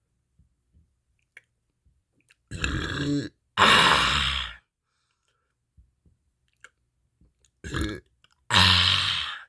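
A person burping loudly four times, in two pairs. Each pair is a shorter burp followed by a longer one of about a second that starts sharply and fades away.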